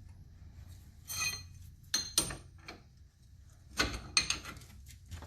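Metal clinks and clicks of hand tools and a nut on the new shock absorber's lower mounting bolt, as the nut goes on and the wrench is fitted. A handful of separate clinks, one about a second in with a short metallic ring, and a quick cluster near the end.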